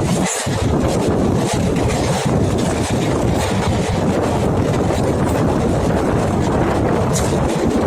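Express passenger train running at speed, heard from aboard: a steady loud rumble of the running train with wind rushing and buffeting against the microphone.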